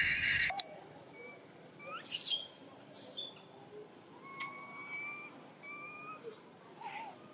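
Baby macaque crying: a loud, shrill scream that cuts off about half a second in. It is followed by faint thin whistling whimpers and a few rising chirps.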